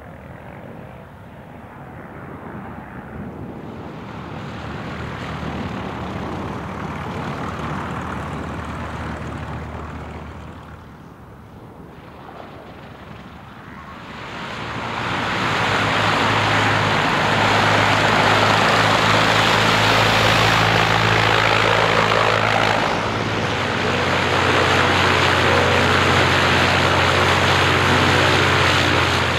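Light aircraft piston engines driving propellers. An engine builds and fades over the first ten seconds. From about halfway a much louder engine comes in close and stays loud and steady, dipping briefly once.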